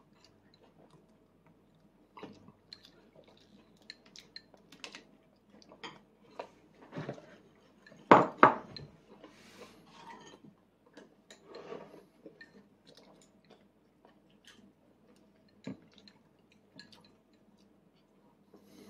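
Training chopsticks tapping and scraping against a plastic divided plate in scattered light clicks, with soft chewing. Two louder knocks come close together about eight seconds in.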